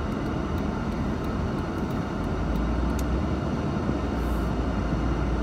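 1989 Mercedes-Benz 560 SEL driving, heard from inside the cabin: a steady low rumble of its V8 engine and tyre noise.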